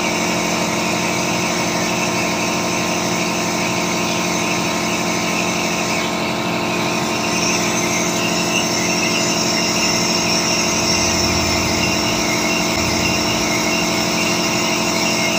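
Steady hum of a running machine, with several whining tones over a hiss. A higher hiss grows stronger about six seconds in.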